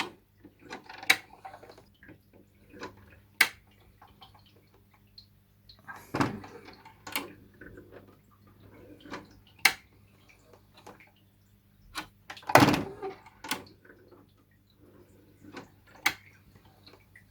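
Scattered clicks, taps and short knocks of hands handling hard objects, with two longer rustling knocks about six and twelve seconds in, over a faint steady hum.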